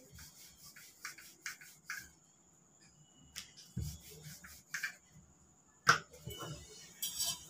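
Quiet clicks, taps and rubbing of hands handling crockery and food at a kitchen counter, with a sharper knock about six seconds in.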